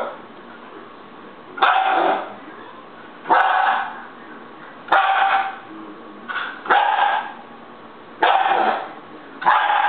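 Siberian husky puppy barking in short, pitched calls, seven of them about every second and a half, two close together in the middle: a puppy throwing a fit.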